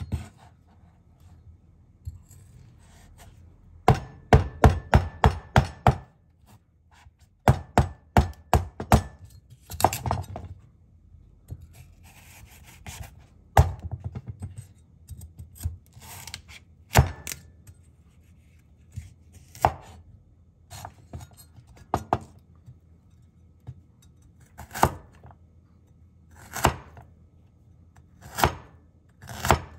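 Kitchen knife chopping a raw carrot on a wooden cutting board. Quick runs of several chops come in the first ten seconds or so, then slower single cuts a second or two apart as the carrot sticks are diced.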